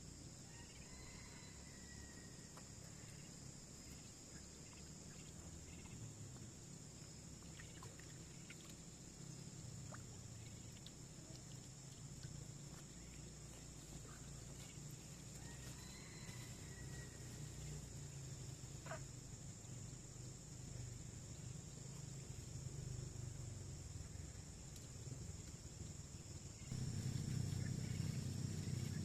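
Steady high-pitched insect chorus, with a few faint bird chirps and occasional light clicks; a low rumble grows suddenly louder near the end.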